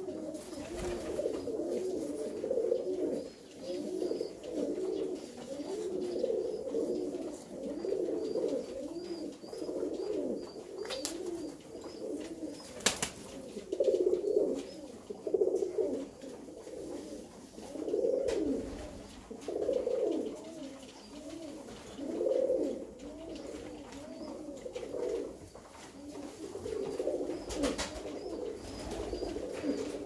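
A flock of Alföldi-Körösi tumbler pigeons cooing, many overlapping coos with no break. A few sharp clicks come through, about 11 and 13 seconds in and again near the end.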